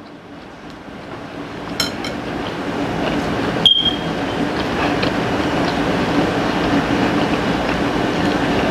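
A steady mechanical rumble with a low hum, swelling over the first few seconds and then holding, with a faint click and a short high ping partway through.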